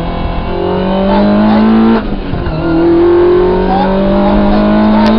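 Rally car engine under hard acceleration: the revs climb, drop sharply at an upshift about two seconds in, then climb again through the next gear.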